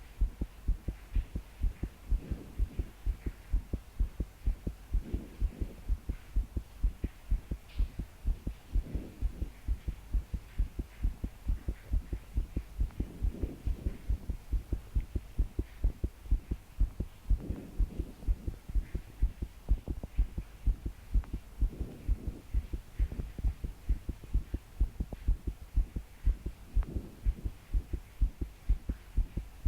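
A young woman's own heartbeat, fast and pounding in a steady run of deep thumps: palpitations, the heart beating hard enough to shake her body. Slow breaths swell and fade under it every four seconds or so.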